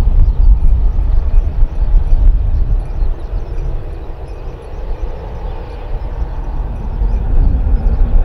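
Low, fluctuating rumble of a jet airliner's engines, an Airbus A321ceo with CFM56 engines, mixed with wind buffeting the microphone. It eases in the middle and builds again toward the end.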